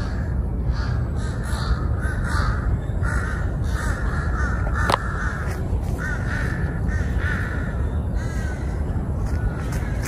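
A flock of crows cawing over and over, many short harsh calls overlapping, over a low steady rumble. A single sharp click about halfway through.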